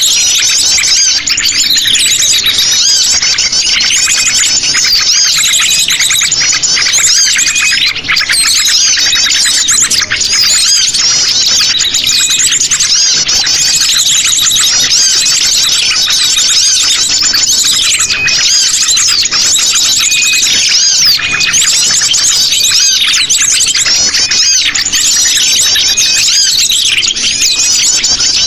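A busy, noisy chorus of sogon bird calls: dense, rapid, high-pitched chirps and twitters overlapping without a break. It is a bird-trapping lure recording meant to draw in wild birds.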